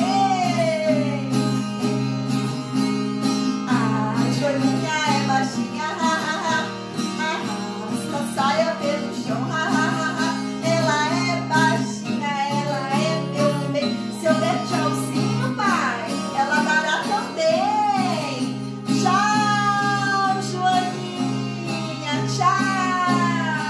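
A woman singing a children's song, accompanied by a steadily strummed acoustic guitar.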